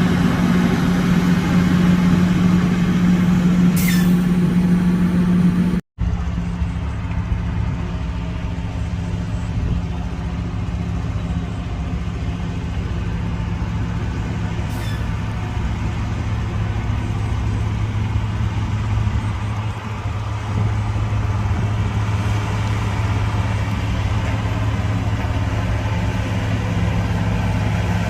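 Heavy diesel engine of road-building machinery running steadily. About six seconds in the sound cuts off abruptly, and after that the engine drones on at a lower, steady pitch.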